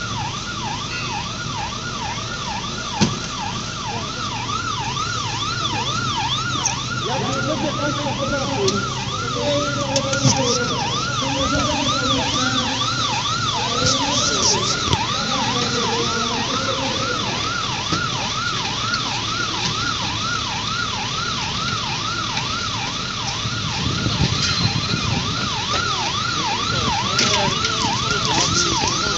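Emergency-vehicle siren sounding a fast yelp, its pitch rising and falling about two to three times a second without a break, over a steady low hum.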